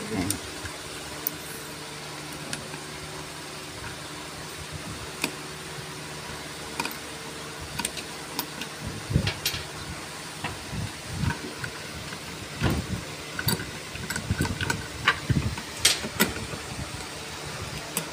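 Scattered light metallic clicks and knocks of hands and small parts on the end cap and screws of a jacuzzi blower motor being taken apart, coming more often in the second half. A steady machine hum runs underneath.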